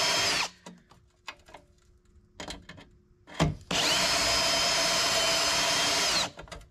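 Power drill turning a spot weld cutter into a spot weld in sheet-steel body panel, cutting it out. The cut stops about half a second in, there is a pause with faint clicks and a sharp click, then a second run of about two and a half seconds, its whine falling as the drill stops.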